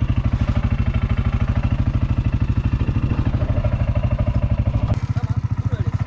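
CFMoto ZForce 500 UTV engine idling, a steady low throb with fast, even pulsing. The sound changes abruptly about five seconds in.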